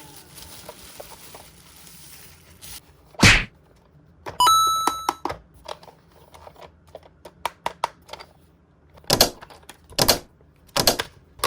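A series of sharp knocks and thunks, the loudest about three seconds in and several more near the end, with a short ringing chime about four and a half seconds in.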